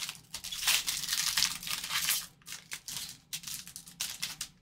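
Foil trading-card pack being torn open and crinkled in gloved hands: a run of irregular crackling and ripping, loudest in the first couple of seconds.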